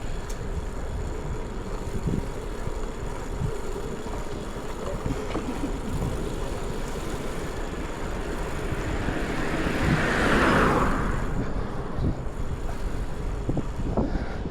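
Steady street traffic and wind rumble picked up by a chest-mounted action camera on a moving bicycle. About ten seconds in, a car passes close by, its hiss swelling and fading over a couple of seconds.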